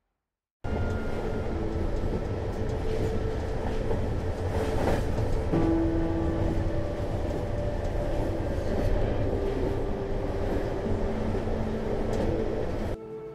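Train running: a steady heavy rumble with a few held tones that shift now and then. It starts suddenly about half a second in and cuts off suddenly just before the end.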